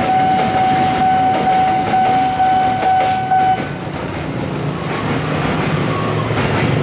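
Railway level-crossing warning alarm sounding a steady high tone with brief regular breaks, cutting off about three and a half seconds in as the crossing clears. Motorcycle and scooter engines then run as the waiting riders pull across the tracks.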